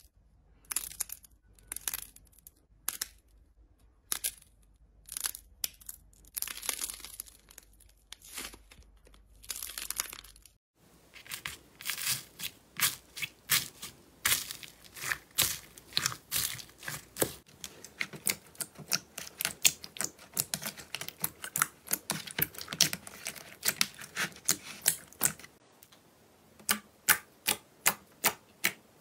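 Slime being handled, in three parts. First a clay donut squeezed in the fingers gives short bursts of crackly squishing. About ten seconds in, a hand pressing floam (slime full of foam beads) gives a dense run of crackles and pops, and near the end fingers poking glossy slime give a few sharp pops.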